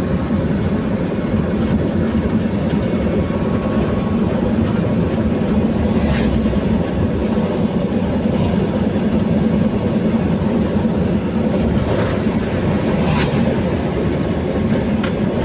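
Steady rumble of a vehicle travelling along a highway, engine and road noise mixed with wind on the microphone, with a few faint ticks.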